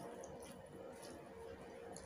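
Faint, soft chewing and wet mouth sounds of someone eating a steamed chicken siomay dumpling, over a low steady room hum.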